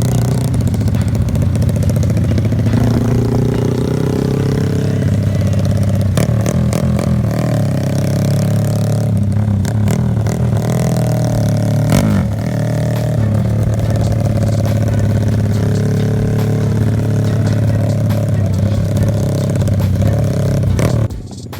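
Kawasaki KLX dirt bike engine running through an underbody box-type aftermarket exhaust, idling steadily with a few throttle blips, about 3 s and 10 s in.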